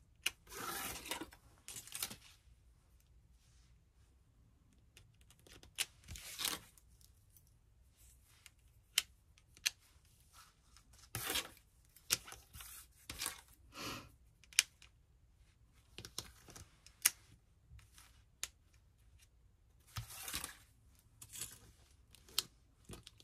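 Thin metal craft cutting dies being handled and sorted: scattered light clicks and taps of the small dies against each other and the table, mixed with brief rustling of their storage.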